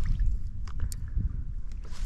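Low rumble of water and wind around a drifting fishing kayak, with a few light clicks of gear.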